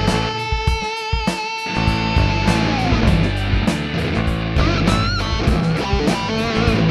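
Rock music with electric guitar: long held lead-guitar notes over bass and a steady drum beat.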